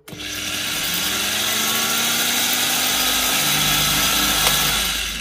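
Evolution 400 W power file (belt file sander) switched on at turned-down speed, its motor and sanding belt running steadily, then switched off about five seconds in. It is a short test run to check the belt's tracking after a belt change.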